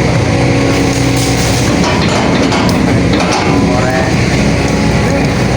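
Hydraulic excavator's diesel engine running under load as it works, a steady drone with short whining pitch glides from the hydraulics.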